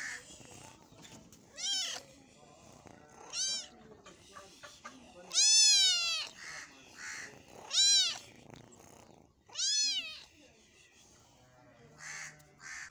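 Kitten meowing repeatedly: about five high-pitched mews roughly two seconds apart, each rising then falling in pitch, the longest near the middle.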